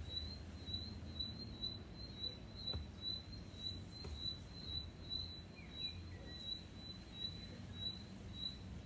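Faint, regular high-pitched chirping, about two chirps a second, over a low background hum, with a couple of short lower chirps a little past the middle.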